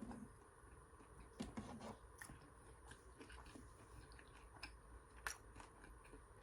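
A person chewing food close to the microphone: faint chewing with scattered crisp crunches and small mouth clicks.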